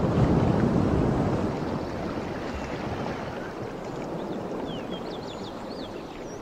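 Steady rushing noise of water and wind from a small boat out at sea, slowly fading. A few faint, short high chirps come about two thirds of the way through.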